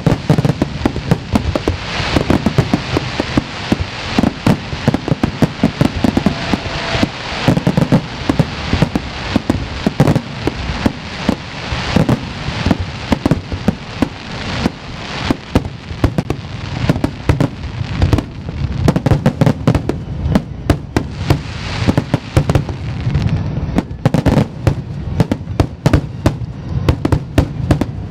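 Aerial fireworks display: a dense, continuous barrage of shell bursts, several loud bangs a second with no break.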